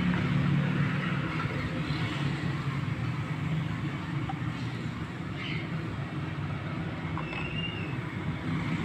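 A steady low hum of background noise, with a few faint light clicks as small plastic toy pieces are set onto a toy kitchen's shelves.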